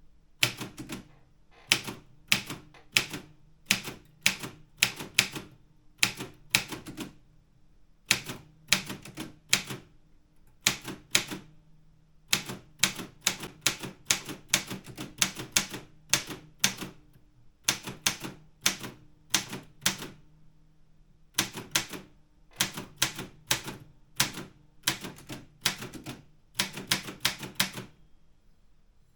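Optima Elite 3 manual typewriter being typed on: sharp key strikes at about two to three a second, in runs with short pauses between them.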